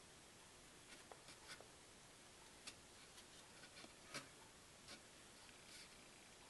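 Faint scattered light clicks and rubs from a small plastic seed-sowing spoon being tapped and shaken to drop lettuce seeds into peat pellets, with fingers handling the pellets.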